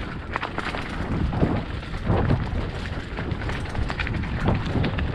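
Wind buffeting the microphone over the rattle of a mountain bike descending a rough trail, with tyres over dirt and loose rock and frequent short clicks and knocks from the bike.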